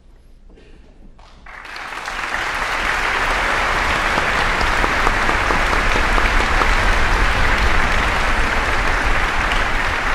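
Audience applauding. The clapping starts about a second and a half in, swells quickly and then holds steady.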